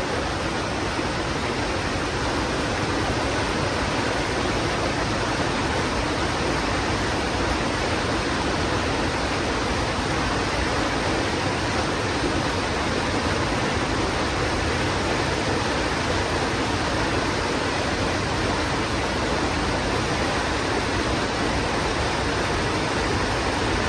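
Steady rush of flowing river water, unchanging throughout.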